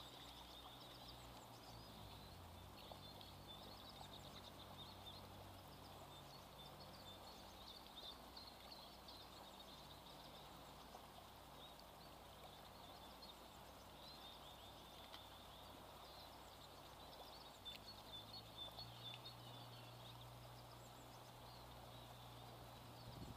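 Faint, steady rush of river water with small birds chirping throughout. A faint low hum sits underneath at the start and again in the last few seconds.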